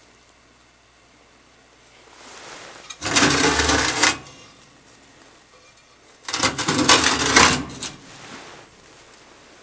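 Two bursts of metallic clattering and rattling, the first about a second long, the second about a second and a half.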